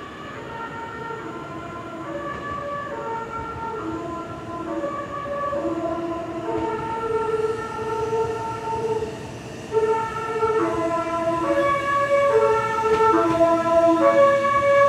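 Meitetsu limited-express train's music horn playing its repeating melody of short stepped notes, growing steadily louder, with a jump in volume about ten seconds in.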